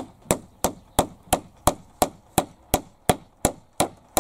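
A hammer striking the wooden frame of a shed door, light even blows at about three a second.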